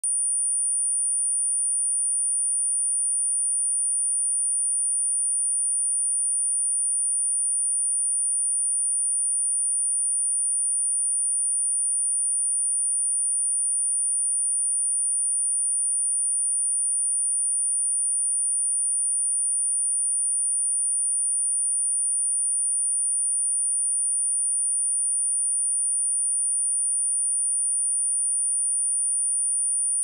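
A pure sine-wave test tone at 9385 Hz, one high-pitched tone held steady without any change. It is a speaker test and speaker-cleaning tone, played to check speakers and shake water and dust out of them.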